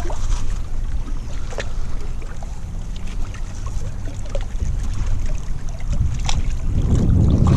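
Wind buffeting the microphone as a fluctuating low rumble that grows stronger near the end, with a few faint clicks.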